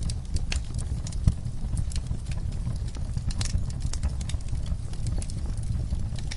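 Wood fire in a fireplace crackling: irregular sharp pops and snaps over a steady low rumble of the flames, with one louder pop about a second in.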